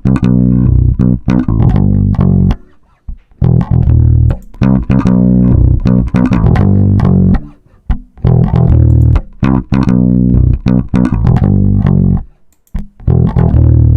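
Direct-input electric bass guitar track: a short plucked riff played back about four times in a loop. It is heard in an A/B comparison with the Acme Audio Opticom XLA-3 optical compressor plugin bypassed and engaged.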